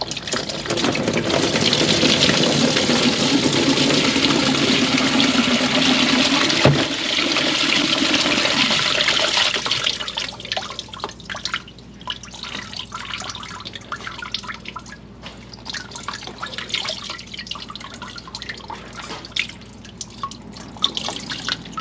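Engine coolant pouring from the open thermostat housing on the underside of a Subaru EJ22 engine and splashing into a catch pan. A heavy stream runs for about nine seconds, then drops to dripping with small clicks of handling. Coolant is being lost while the thermostat is swapped.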